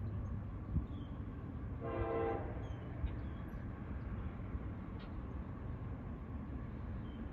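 Approaching CSX freight locomotive's horn giving one short blast of under a second, about two seconds in, heard from a distance over a steady low rumble.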